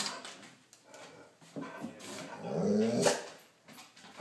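A dog makes one low, drawn-out vocal sound that rises and then falls in pitch, about two and a half seconds in, ending with a sharp click.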